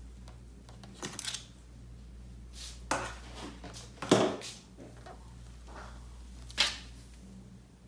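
Thick, fluffy slime being scooped and squeezed by hand, giving several short crackling squishes, the loudest just after four seconds in, over a low steady hum.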